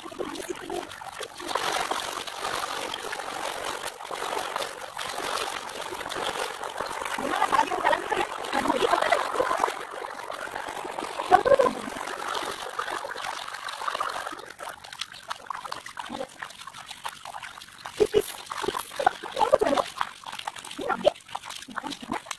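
Running water splashing and trickling, a steady wash for the first dozen seconds or so that then breaks up into scattered separate splashes.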